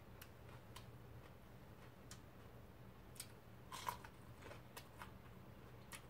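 Faint, irregular clicks and crunches of a person biting into and chewing a fresh green chili pepper, with one louder crunch about four seconds in.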